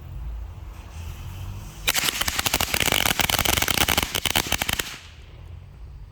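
A 100-count strip of small Black Cat-type firecrackers going off in a rapid chain of sharp bangs for about three seconds, starting about two seconds in and stopping near the five-second mark.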